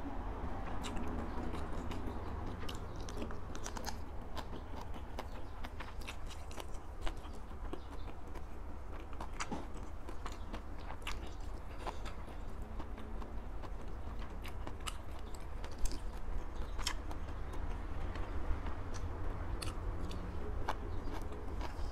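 A person chewing food close to a lapel microphone, eating sticky rice and naem by hand. Wet mouth clicks and smacks come irregularly throughout, with a few louder ones about seven and sixteen seconds in, over a steady low hum.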